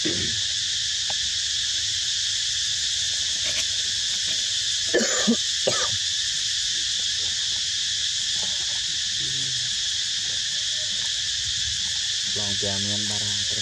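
A steady, high insect chorus drones throughout. About five seconds in come a few short, sharp calls, and near the end low, voice-like sounds begin.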